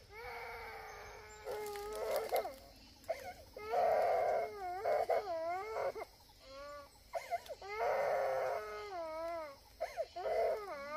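A young child crying: a series of long, high cries a second or two each, wavering in pitch, with short breaths between them.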